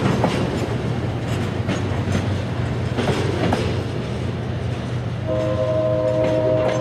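Diesel freight locomotive running past with a steady engine hum and wheels clicking over rail joints. About five seconds in, its multi-chime air horn starts sounding and holds to the end.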